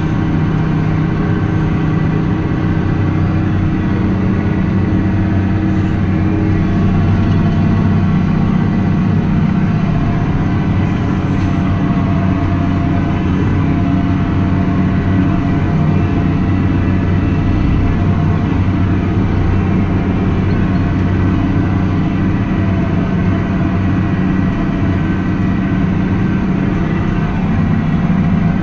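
Farm tractor engine running steadily under load, a constant low hum.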